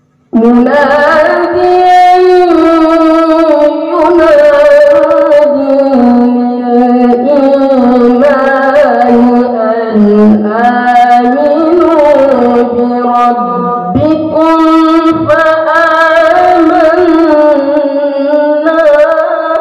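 A boy's melodic Qur'an recitation (tilawah) into a microphone: one high voice in long, ornamented held phrases that bend up and down in pitch. It starts suddenly just after the start, with a brief break about fourteen seconds in.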